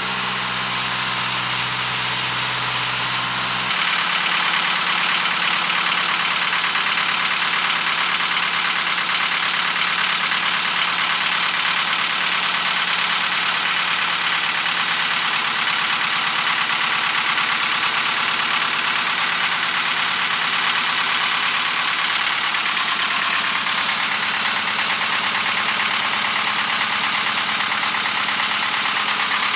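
Onan 12.5 kW generator's four-cylinder diesel engine running steadily. About four seconds in, the sound turns slightly louder and brighter and then holds steady.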